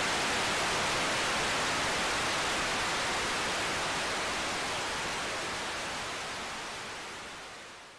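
Steady hiss of analog video static, the no-signal snow of a video feed, gradually fading out over the second half.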